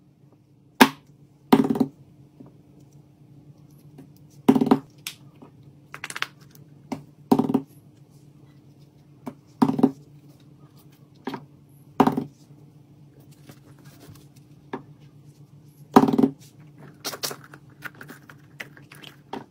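Squishy and silicone pop-it toys being set down and handled on a tabletop: a long series of separate sharp knocks and taps a second or more apart, coming closer together near the end, over a faint steady hum.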